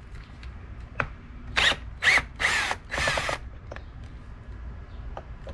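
Cordless drill-driver running in four short bursts, its motor pitch sliding up and down, loosening a bolt inside a steering wheel. A single click comes just before the bursts.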